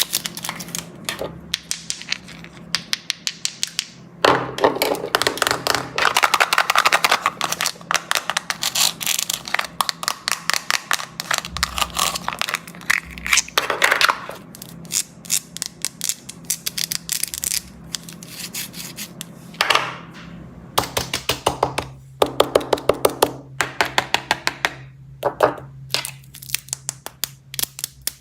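Candy packaging being handled close up: plastic wrappers crinkling and crackling in bursts of rapid sharp clicks, with short pauses between.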